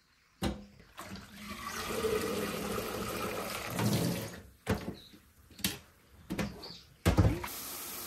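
Water pouring off a stainless steel colander pot of blanched greens as it is lifted to drain in a steel sink, followed by several sharp metal clanks of pots, and a tap starts running steadily near the end.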